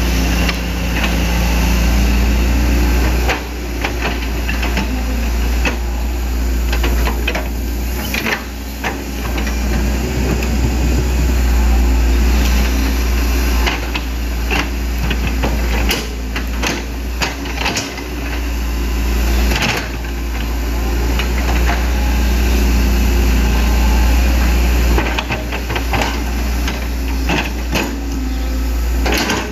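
Hitachi Zaxis 110MF hydraulic excavator's diesel engine running steadily under load while it digs out a ditch, with repeated sharp clanks and knocks from the bucket and arm working the mud.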